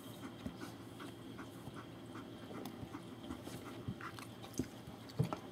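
Three-week-old German Shepherd puppies moving about and mouthing, with faint soft scuffling and small ticks and a few light knocks near the end.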